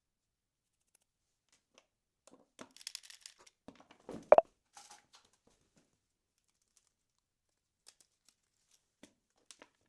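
Hand-handling noises: crinkling, tearing-like rustles and small clicks, with one short, sharp, loud squeaky snap about four seconds in, then a few faint ticks.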